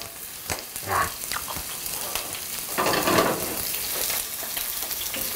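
White onions sizzling in hot oil in a pan, with a spatula stirring and scraping against the pan in short clicks.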